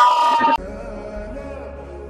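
Sung vocal music with long held, wavering notes, cut off abruptly about half a second in, leaving a quiet background with a low steady hum.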